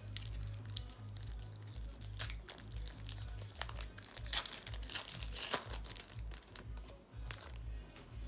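Foil trading-card booster pack crinkling and tearing as it is opened by hand, a run of sharp crackles throughout, over low background music with a pulsing bass.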